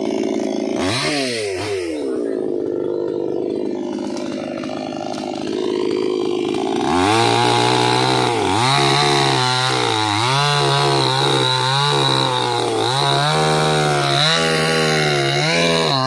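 Chainsaw running lightly, revved briefly about a second in. From about seven seconds in it runs at full throttle cutting through a felled palm trunk, its pitch dipping again and again as the chain loads up in the wood.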